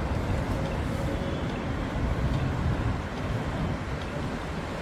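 City street traffic noise at a crossing: a steady mix of engines and tyres, heaviest in the low end.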